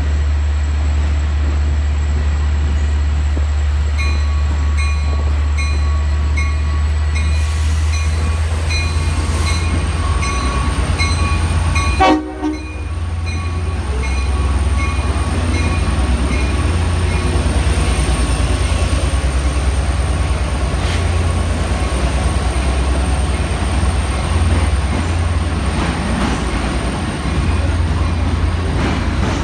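EMD DE30AC diesel-electric locomotive running at the platform with a steady low drone, while a repeated beeping sounds for several seconds. About twelve seconds in there is one short horn blast, and then the engine works harder as the train pulls out and the bilevel cars roll past.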